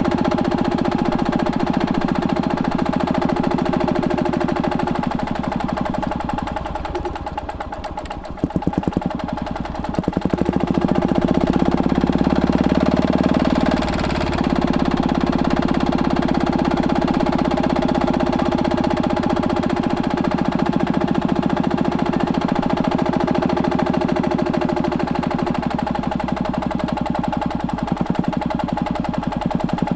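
Stuart Turner H1 single-cylinder stationary engine running unloaded with a fast, even firing beat. Its level sags between about six and eight seconds in, then picks up again. The owner says it still needs a good load to level it out.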